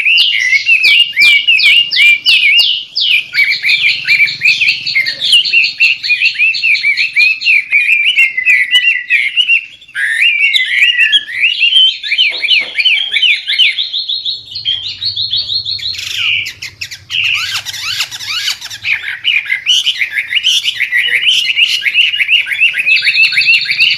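White-rumped shama (murai batu) singing continuously in fast runs of rapidly repeated high whistled and chattering notes, with almost no pauses.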